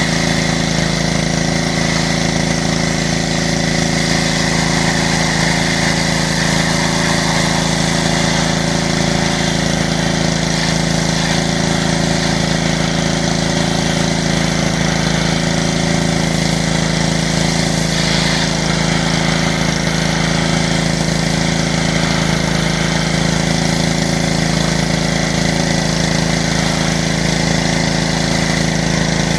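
Pressure washer running steadily, its motor holding a constant hum under the hiss of the water jet spraying the van's bodywork.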